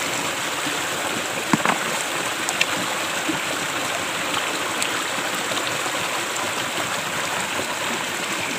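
Steady rush of a rocky river stream flowing among boulders, with a couple of light clicks about one and a half and two and a half seconds in.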